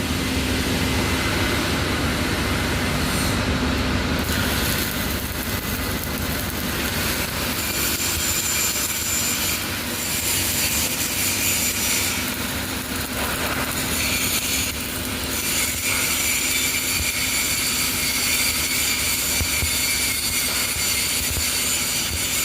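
Shielded metal arc (stick) welding arc burning a 7018 electrode on a vertical-up fill pass, sizzling steadily without a break.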